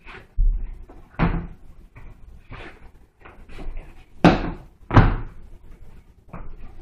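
A series of thumps and knocks as leather boots are pulled off and dropped onto a hard floor, the two loudest close together after the middle.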